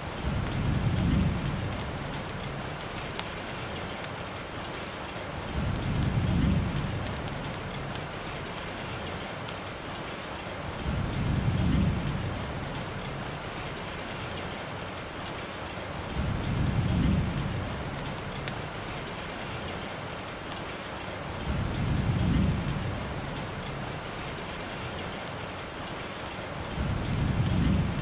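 Steady rainfall with fine drop ticks, under a low rumble that swells and fades about every five seconds, six times in all.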